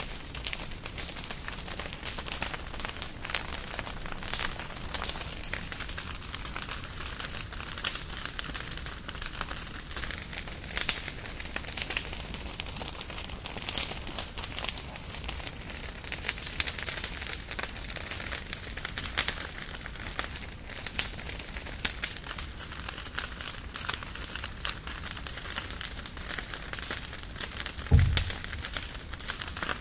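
Wood fire crackling steadily, with frequent sharp pops and snaps over a soft hiss; a single dull low thump near the end.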